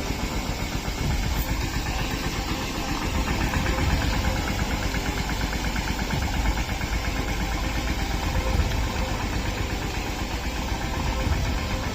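An engine running steadily at idle, with a fast even rhythm.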